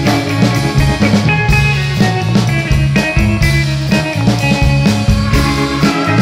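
A rock band playing a psychedelic rock song live: drum kit with cymbals and electric guitar over a low bass line, with a steady beat.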